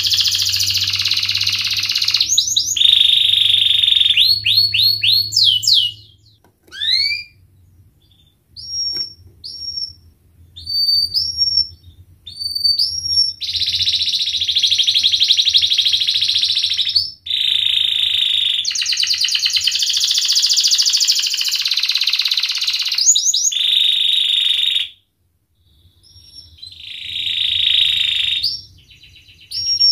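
Domestic canary singing: long, fast rolling trills alternate with sweeping rising notes and short whistled chirps. There is a brief pause near the end.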